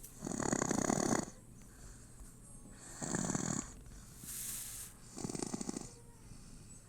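A sleeping baby snoring: three rattly snores roughly two and a half seconds apart, the first the loudest, with a soft breathy hiss between the second and third.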